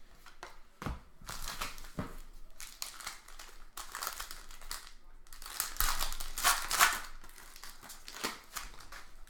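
Trading card pack wrapper crinkling as it is torn open and handled, with a few light knocks of cards against the table.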